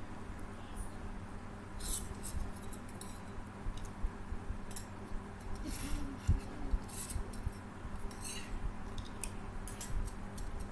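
Scattered light clicks and scratchy rustles, a few seconds apart, over a steady faint electrical hum.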